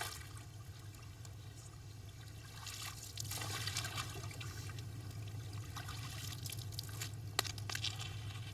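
Water trickling and splashing over a steady low hum, with a sharp click about seven seconds in.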